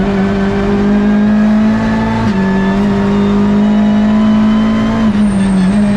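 Hyundai i30 N TCR race car's turbocharged 2.0-litre four-cylinder engine running hard at high revs, heard from inside the cockpit. The pitch climbs slowly and steps down a little twice, about two seconds in and again about five seconds in.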